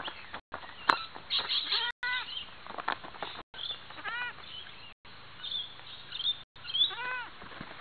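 Goat kids bleating: three short wavering bleats, each a quick run of pulses, over scattered taps and thumps of hooves landing on a trampoline mat.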